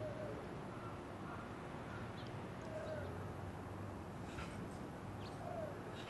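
Faint, scattered short bird chirps, a few seconds apart, over a low steady outdoor hum.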